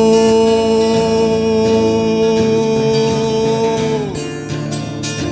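Live acoustic song: a male singer holds one long 'oh' note over acoustic guitar. The note bends down and stops about four seconds in, and the guitar plays on.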